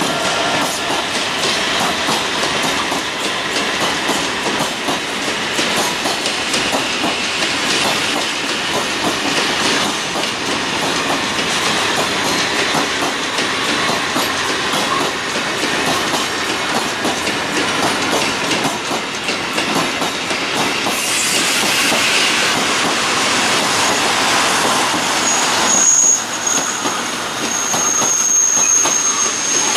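Loaded Talbot-type hopper wagons of a coal freight train rolling past, their wheels clattering steadily over the rail joints. A high wheel squeal sets in about three-quarters of the way through.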